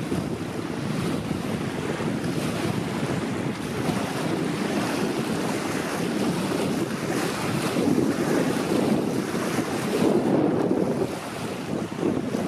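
Wind buffeting the microphone, with stronger gusts about eight and ten seconds in, over small waves lapping on a gravel lake shore.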